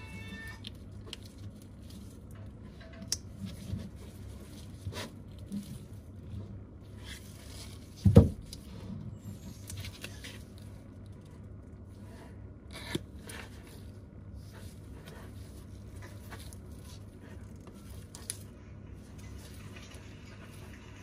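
An iPad Pro 10.5-inch being handled and pressed along its edges with gloved hands: scattered light clicks and scrapes, with one louder knock about eight seconds in, over a steady low hum.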